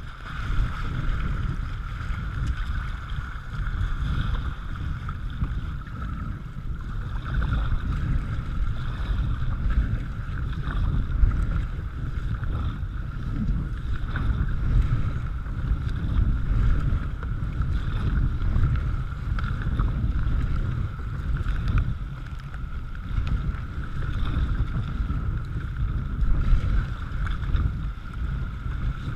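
Water rushing and splashing around a kayak's bow as it is paddled downriver, swelling and falling every couple of seconds with the paddle strokes, with wind rumbling on the microphone.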